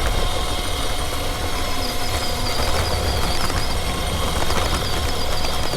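Engine running steadily: a low rumble with a constant whine over it and a few light clicks.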